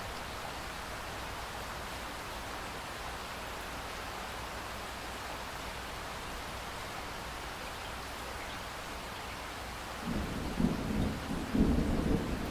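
Steady rain falling, an even hiss. About ten seconds in, a low rumble of thunder starts and swells in uneven surges over the rain.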